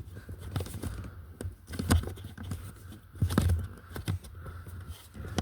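Plastic cabin air filter cover being worked by hand into the filter housing, scraping and clicking against the surrounding plastic, with a couple of duller knocks about two and three seconds in.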